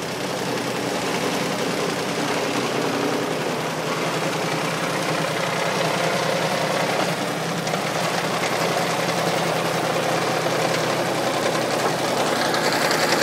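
Large stump grinder's engine running steadily, with a louder, brighter edge coming in near the end.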